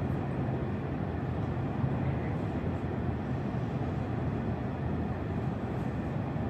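Steady low mechanical rumble with a faint hiss, like vehicle or engine noise heard from close by, with no distinct events.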